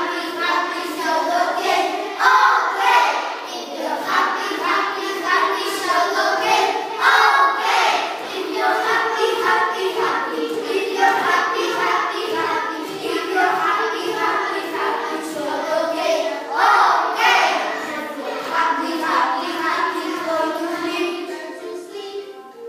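A group of young children singing a song together in unison, easing off near the end.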